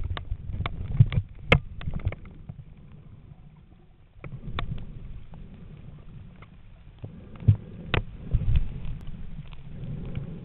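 Muffled underwater noise picked up by a submerged camera: low rumbling of water moving against the camera, with scattered sharp clicks and knocks. It is loudest in the first two seconds, drops low around three to four seconds in, and swells again with a cluster of knocks around eight seconds in.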